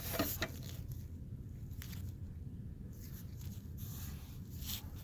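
Faint rustling and a few light clicks of handling over a steady low rumble.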